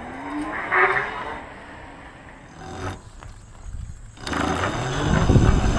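Electric mountain bike with a sine-wave motor controller riding on pavement. A short rising motor whine comes about half a second in. From about four seconds on there is a louder rumble of the tyres and drivetrain as the bike passes close. The quiet motor is what the sine-wave controller is credited for.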